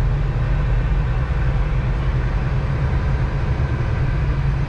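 2023 Kenworth T680 semi truck's diesel engine running steadily at low speed, a low, even drone.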